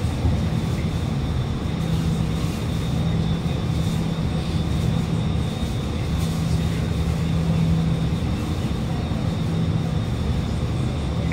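Alstom Movia R151 metro train standing at a station with its doors open: a steady drone from the train's equipment, with a low hum that swells and fades every couple of seconds and a faint, steady high whine.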